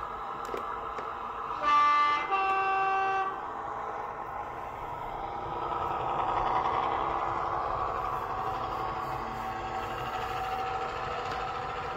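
Sound decoder in a Bachmann class 117 DMU model sounding a two-tone horn about two seconds in, a short note followed by a longer, higher one. Under it runs the decoder's recorded diesel engine sound, swelling about halfway through as the unit passes.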